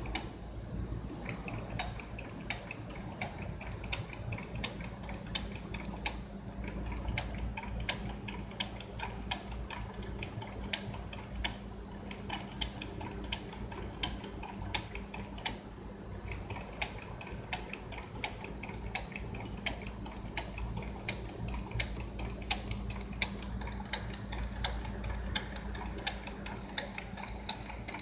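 Shoe-making machine running: a steady hum with sharp mechanical clicks about twice a second.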